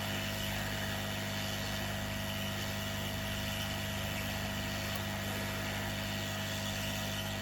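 Hot air rework station blowing steadily, a constant whooshing fan noise with an even electrical hum underneath, as a chip is heated onto a laptop motherboard.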